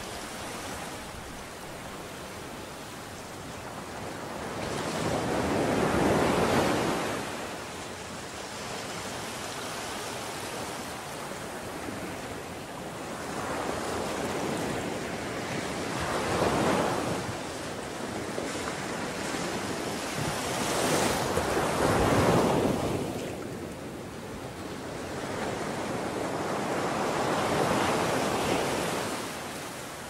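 Ocean surf on a beach: waves breaking and washing in, the sound swelling and fading every few seconds.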